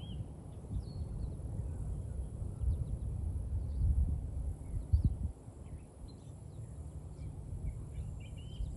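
Outdoor ambience: an uneven low rumble of wind on the microphone, with faint, scattered short bird chirps.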